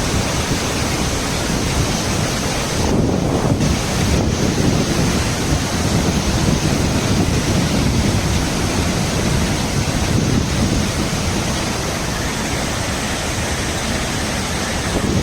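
Water at Neyyar dam rushing down in a steady, loud torrent.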